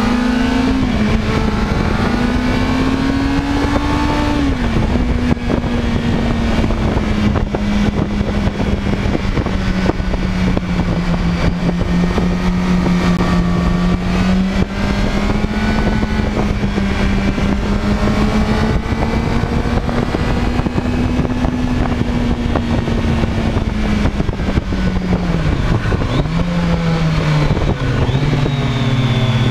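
Sport motorcycle engine running hard on a racetrack, heard from on the bike with wind rushing over the microphone. Revs climb over the first few seconds and drop at a gear change about five seconds in, then hold fairly steady. Near the end they fall, pick up again and settle lower.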